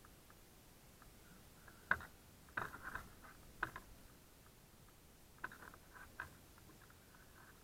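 Soft scuffs and sharp clicks of leather-gloved hands gripping and sliding on climbing rope and prusik cords, close to a helmet-mounted microphone. A cluster of them about two to four seconds in, with the loudest click near two seconds, and a few more about five and a half to six seconds in.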